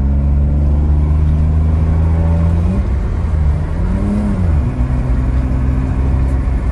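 BMW E34 525i's straight-six engine and road noise, heard from inside the cabin at highway speed. The engine note climbs steadily as the car accelerates, wavers about three to four seconds in, then settles to a steady cruise.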